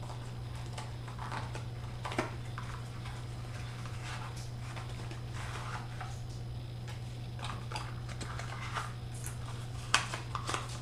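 A small cardboard retail box being handled and opened, with its foam tray slid out. It makes light rustling and scraping with scattered soft clicks, a sharp tap about two seconds in and a louder click near the end, over a steady low hum.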